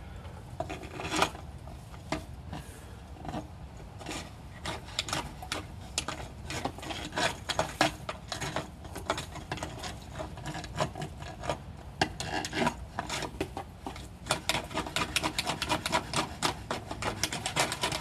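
Sewer inspection camera's push cable rasping and clicking as it is fed into and pulled back through the pipe, failing to get past an obstruction in the line. The clicks are sparse at first and come thick and fast from about four seconds in.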